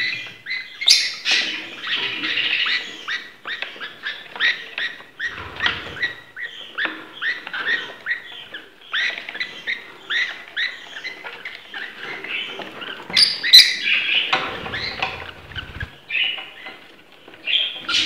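Budgerigars chattering in a quick, unbroken run of short high chirps and warbles, with a couple of low thumps in between.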